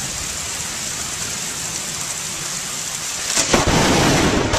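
Heavy rain hissing steadily. About three and a half seconds in, a very close lightning strike gives a sudden sharp crack, and loud thunder follows at once.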